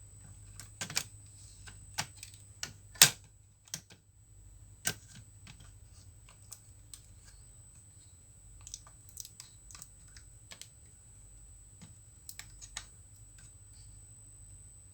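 Scattered sharp clicks and taps of a screwdriver and small screws against a Dell Latitude E5470 laptop's chassis as a replacement motherboard is screwed into place, the loudest about three seconds in.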